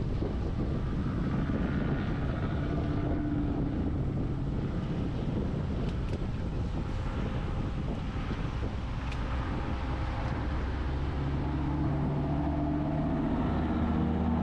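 A car's engine and road rumble heard from inside the cabin, steady and low, with the engine's hum growing stronger near the end.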